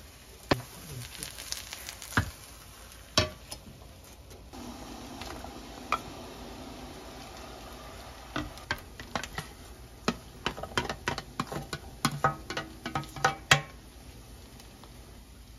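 A few sharp knocks, then a wooden spatula stirring and tapping against a pot of boiled broth as kimchi, tofu and vegetables go in, with a quick run of clacks and knocks near the end.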